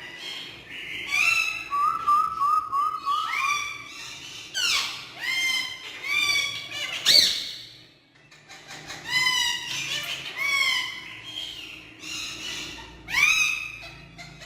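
Green parrot calling in a string of squawks and whistled calls with sliding pitch, including a quick run of short repeated notes about two seconds in.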